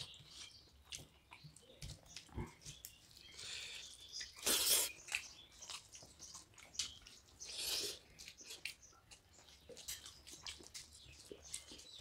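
Two people eating fish head curry and rice by hand: chewing and mouth noises, with small clicks and squelches as fingers mix the rice and curry on steel plates. Louder short noisy bursts come about four and a half and about eight seconds in.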